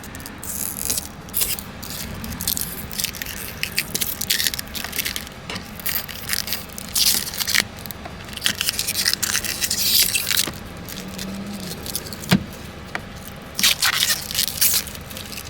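Door handle hardware being worked on a door: irregular scraping and rustling, with a sharp click about twelve seconds in.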